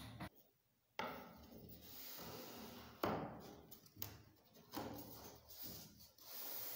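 A thin strip of wood being handled on a workbench top: rubbing and sliding, with several light knocks and one sharper knock about three seconds in.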